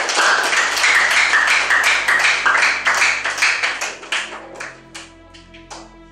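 A group of people clapping: dense applause that thins out to a few scattered claps and stops about five seconds in, with soft background music underneath.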